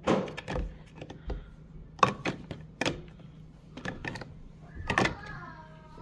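Sharp plastic clicks and knocks from a Simplicité drip coffee maker being handled, its hinged lid and parts knocking: about seven separate taps spread over a few seconds.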